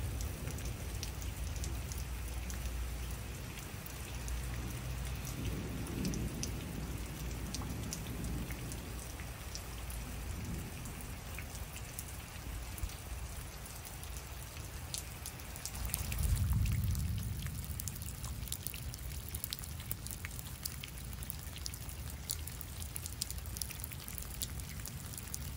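Steady rain falling, with many single drops ticking close by. A low rumble swells about sixteen seconds in.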